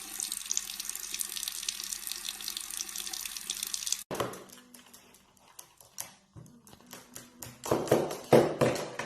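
Running water, a steady hiss like a tap, that cuts off abruptly about four seconds in; after it come scattered light clicks and knocks, with a louder cluster of thumps near the end.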